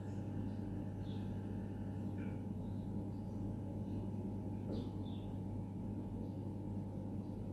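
A steady low drone with a few fixed tones, unchanging throughout, with faint short high chirps dotted through it every second or so.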